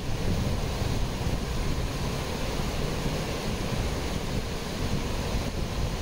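Steady rush of a cascading mountain waterfall and stream, with wind buffeting the microphone as a fluttering low rumble.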